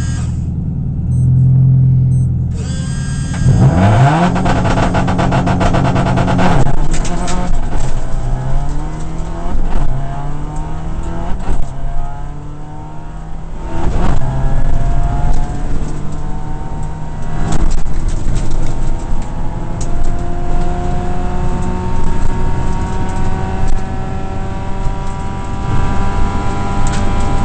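Subaru rally car's turbocharged flat-four engine, heard from inside the cabin, running steadily on the start line, then launching about three seconds in and accelerating hard through the gears. The engine then runs at high revs on a gravel stage, over continuous road noise and sharp clicks.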